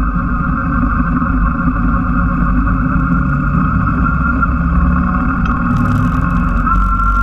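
Yamaha Drag Star cruiser's V-twin engine running at a steady cruising speed.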